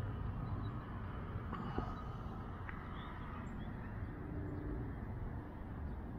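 Outdoor background: a steady low rumble with a few faint bird chirps and a single light click about two seconds in.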